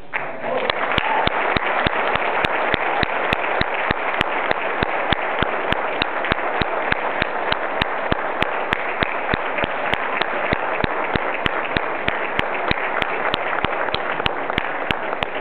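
Audience applauding steadily, with one nearby person's claps standing out sharply at about three a second.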